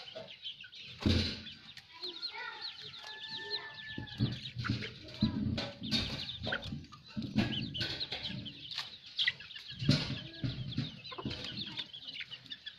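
Young chickens peeping and clucking, with many short high calls throughout, along with a few dull thumps and rustles.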